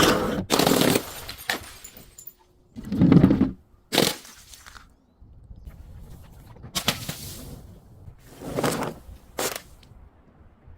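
A series of separate crashes and crunches, about eight in all, as things are smashed and crushed one after another, with glass breaking among them. The loudest is a deeper crash about three seconds in.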